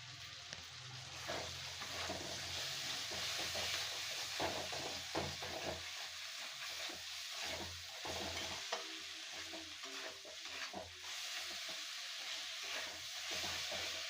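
Chutney ingredients (onion, tomato, grated coconut and herbs) sizzling as they fry in a pan, with a spatula stirring and scraping through them in repeated short strokes.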